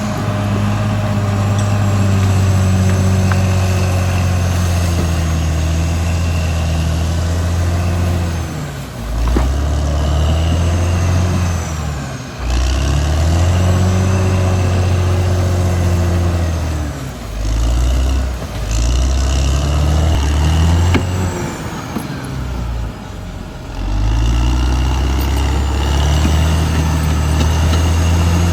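Caterpillar D6R XL bulldozer's diesel engine running hard, its revs dipping and recovering several times as the load changes, with a thin high whine over the engine.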